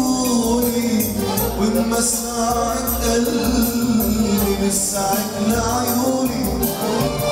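Live band music: a man singing into a microphone, accompanied by an electronic keyboard over a steady drum beat.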